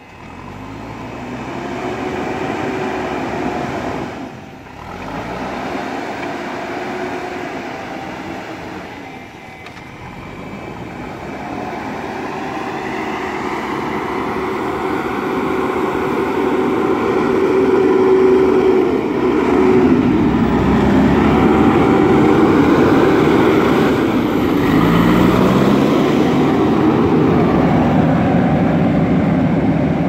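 JCB backhoe loader's diesel engine running under load as it drives over loose sand, its pitch rising and falling as the throttle changes, growing louder as the machine comes close.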